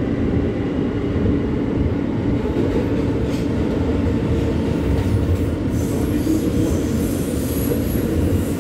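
New York City subway train on the L line running along the track, heard from inside the car: a steady, loud rumble of wheels and running gear, with a faint high whine in the second half.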